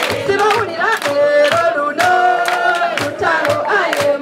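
A crowd singing together in long held notes over a steady beat of about two to three strokes a second.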